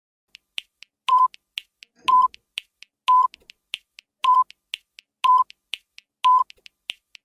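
Quiz countdown timer sound effect: quick clock-like ticks, about four a second, with a short beep once a second, starting just after a brief silence.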